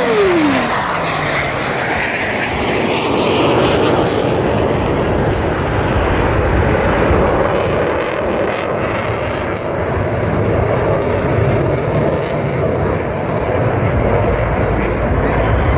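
Blue Angels F/A-18 Hornet jets flying past: engine pitch drops steeply as one jet passes right at the start, then a steady jet engine noise carries on.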